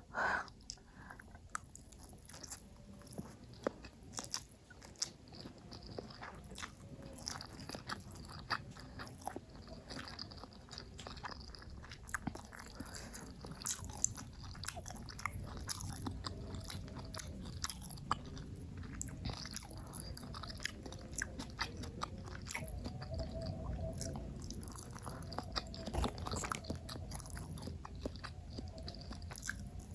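Close-miked chewing and biting, with many small crisp clicks and crunches of food being eaten.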